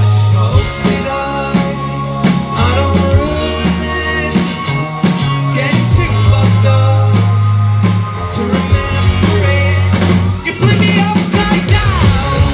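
Indie rock band playing live: electric guitars and drum kit over deep, sustained bass notes, with the lead singer's vocals on top.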